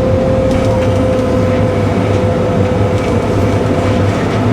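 Cat 313 excavator's diesel engine running steadily, with a constant whine held on one pitch above the low rumble.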